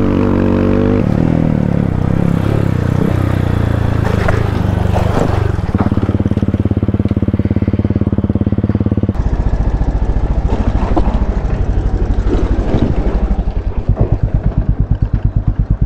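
Dirt bike engine on a rocky trail, revving in the first second and then running at a steady, quick, even beat as it slows to idle. The beat is loudest near the end.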